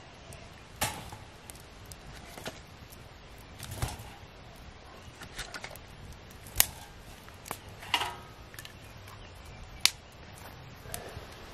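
Wood fire crackling in a stainless pop-up fire pit: irregular sharp snaps and pops every second or so, with a dull knock about four seconds in.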